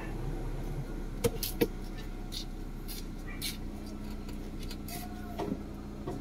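Mitsubishi Lancer engine idling steadily, just restarted after sitting unused for over a year, with several sharp clicks over the hum, the loudest two a little over a second in.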